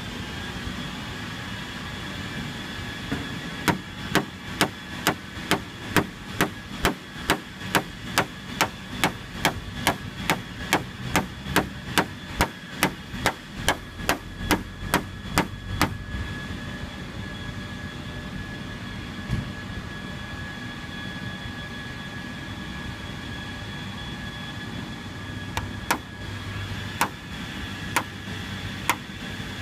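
A hand-held tool striking a glass-coated car paint panel again and again: sharp taps, about two a second, for some twelve seconds, then a few more near the end, in a hardness test of the coating.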